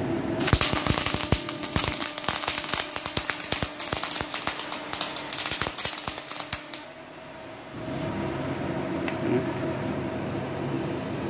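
MIG welding arc from an iBell TA501i 500-amp welder, crackling and spattering for about six seconds as a bead is laid on steel plate, then stopping. After a short lull, the welding machine's steady hum comes back near the end.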